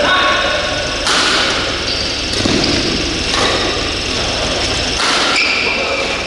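Badminton rally: racket strikes on the shuttlecock about once a second, with short high squeaks of court shoes, over a steady low hum of hall noise.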